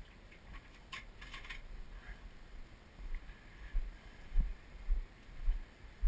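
Footsteps of a person walking, heard as dull low thuds about two a second, starting about three seconds in. Before them come a few light rustles and clicks.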